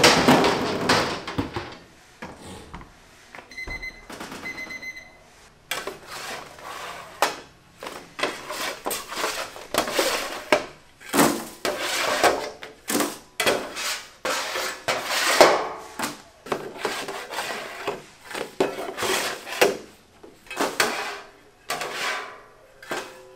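Metal sheet pans scraping and clanking as they are drawn from a deck oven. This is followed by a steel scraper rasping across the bare pans in repeated strokes, lifting baked ox-tongue cakes off the metal. A short electronic beeping sounds about four seconds in.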